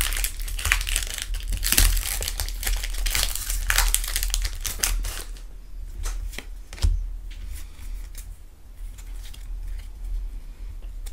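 Foil wrapper of a Pokémon trading-card booster pack crinkling and crackling as it is torn open by hand. After about five seconds it gives way to quieter handling of the cards, with a single sharp tap near seven seconds.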